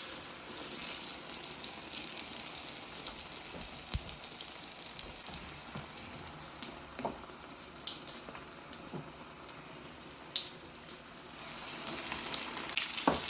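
An egg-battered chile relleno frying in hot oil: a steady sizzle with scattered crackles and pops, growing louder near the end.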